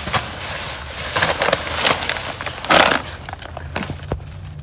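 A Zapp's potato-chip bag crinkling and rustling as it is handled and held up. The crinkling is loudest in the first three seconds, then trails off into a few light crackles.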